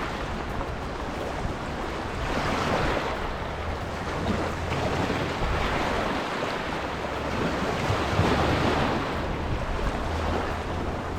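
Small waves washing in and out, swelling and fading every few seconds, with wind rumbling on the microphone.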